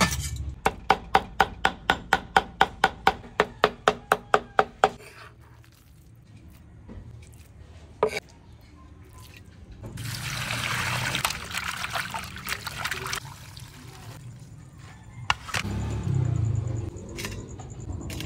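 A quick run of about seventeen even knocks, about four a second, lasting about four seconds. Later, liquid pours for about three seconds, with single knocks before and after it.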